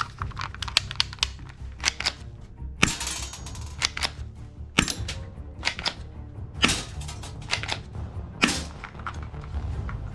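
Toy guns firing: a string of sharp, irregularly spaced shots and pops, with a longer burst about three seconds in and loud single shots near 5, 7 and 8.5 seconds, over background music.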